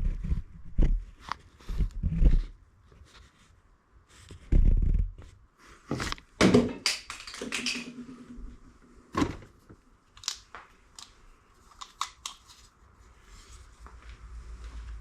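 Scattered clicks, knocks and short scrapes of tools and parts being handled in a transmission teardown, with a couple of heavier knocks about five and seven seconds in.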